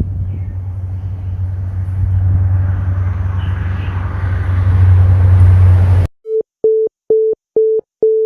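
A loud, steady low rumble like a running engine that cuts off suddenly about six seconds in. It is followed by a string of short beeps at one pitch, evenly spaced at about two to three a second, like a telephone busy signal.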